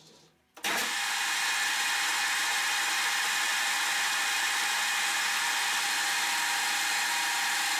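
Metal lathe running with the chuck spinning at speed: a steady, high whirring hiss that starts abruptly just over half a second in and holds an even level.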